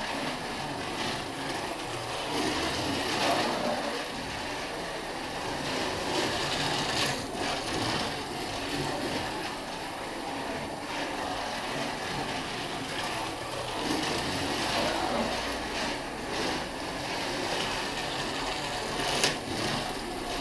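Small electric motor and gears of a battery-powered radio-controlled model car running laps, a steady whirr with tyre rumble that swells and fades as the car comes near and goes away. A sharp click comes near the end.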